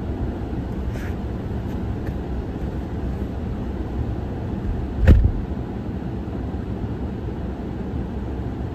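A car being driven, with steady road and engine noise and a single thump about five seconds in.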